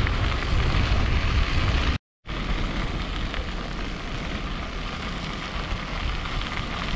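Wind rushing over the microphone while cycling, a steady rumbling hiss. It drops out completely for a moment about two seconds in, then goes on a little quieter.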